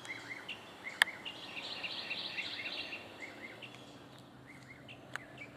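Birds chirping: a run of short, high chirps, densest in the middle, with a single sharp click about a second in.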